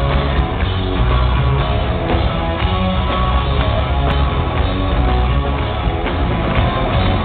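Rock band playing live: electric guitar and drums at full volume, with a heavy low end.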